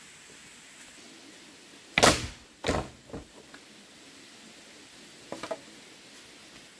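A few sharp knocks over a steady hiss: two loud ones about two seconds in, less than a second apart, a softer one just after, then a quick rattle of small knocks near the end.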